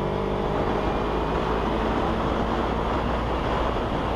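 Sport motorcycle's engine running steadily at highway speed, heard from an onboard camera with wind noise rushing over the microphone.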